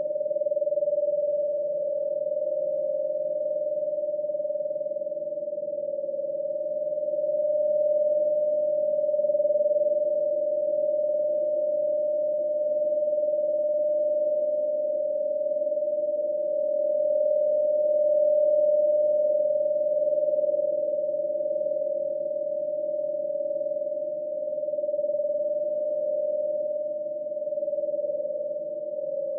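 Ghost sound effect: a steady tone held on one pitch over a fainter, lower drone, slowly swelling and easing in loudness without a break.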